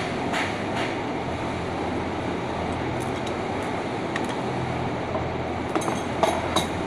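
A steady mechanical hum and rumble of background machinery, with a few light metallic clicks near the end.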